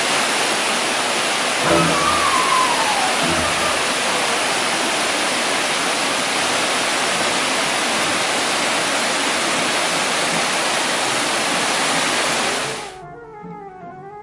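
Water cascading over rocks in a small waterfall: a loud, steady rush that cuts off suddenly near the end, where music takes over.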